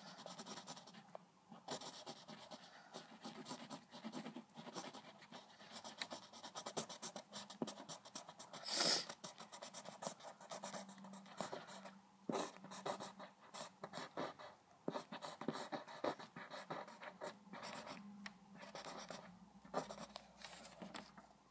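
Pencil scratching on paper in many quick short strokes, sketching fur. One stroke about nine seconds in is louder than the rest.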